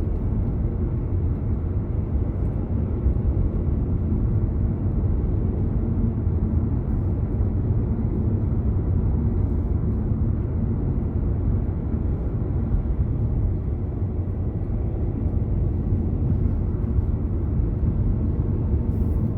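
Steady low rumble of a car driving on the road: tyre and engine noise at a constant cruising speed.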